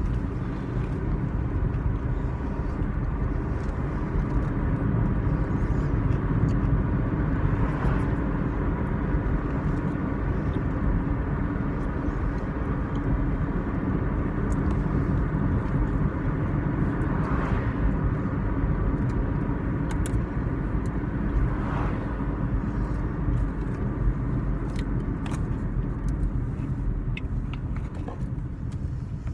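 Car interior road noise while driving: a steady low engine and tyre rumble with a constant hum, and a few faint clicks.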